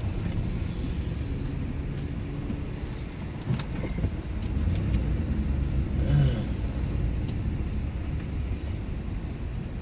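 Parked vehicle's engine idling, a steady low rumble heard inside the cabin, with a sharp click about three and a half seconds in.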